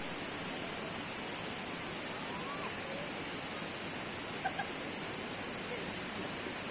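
Steady rushing of river water, with a constant high-pitched drone over it and a few faint distant voices.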